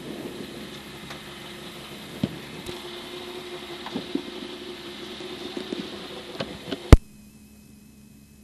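Citroën C2 R2 Max rally car's engine idling, with a few knocks and clunks from the cabin. About seven seconds in, a sharp click and the engine sound stops abruptly, leaving a faint hiss.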